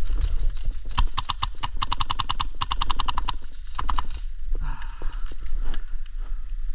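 Three short bursts of full-auto airsoft gunfire, about ten shots a second, each burst under a second long, with footsteps on dry ground in between.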